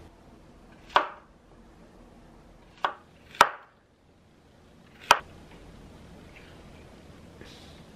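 A chef's knife slicing a zucchini into thick rounds, each cut ending in a sharp knock on the bamboo cutting board. There are four knocks, unevenly spaced a second or two apart.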